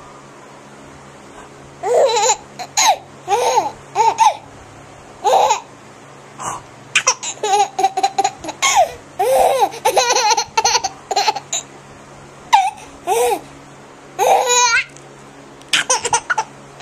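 A baby laughing in repeated fits of giggles and squeals, starting about two seconds in.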